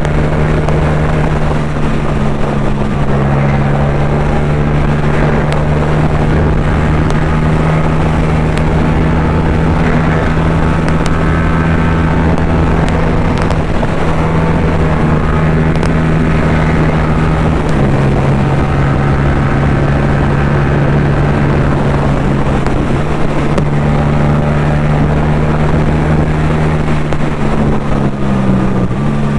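Yamaha MT-07's parallel-twin engine running steadily at cruising revs on the road. The engine note shifts in pitch about eighteen seconds in and falls near the end.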